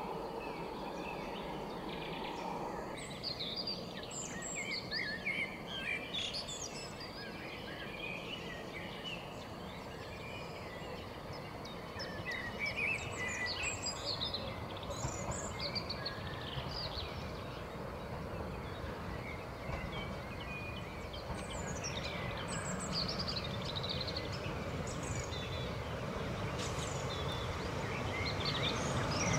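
Small birds chirping and singing over a steady rural background noise. Over the last few seconds a low rumble grows louder as a train approaches.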